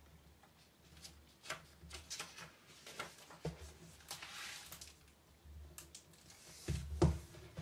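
Faint scattered clicks, taps and rustles of handling, with a soft hiss about four seconds in and a couple of louder knocks near the end.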